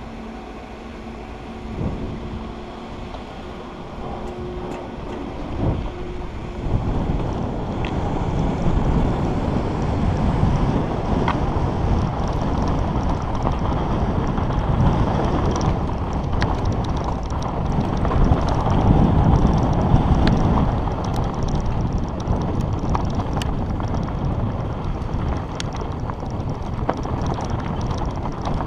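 Wind rushing over an action camera's microphone together with mountain bike tyres rolling over loose gravel and dirt on a descent. It gets louder about six seconds in and stays up, with scattered sharp ticks.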